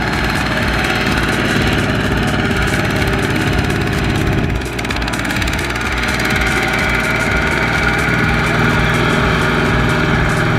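A two-wheel walking tractor's single-cylinder diesel engine running steadily, with a brief dip in level a little under halfway through.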